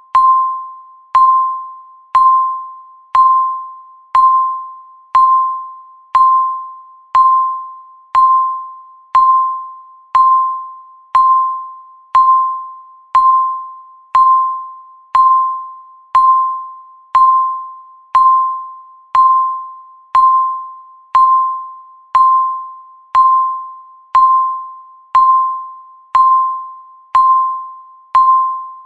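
Countdown timer beep sounding once a second: a single mid-pitched electronic tone each time that starts sharply and fades out before the next, all at the same pitch.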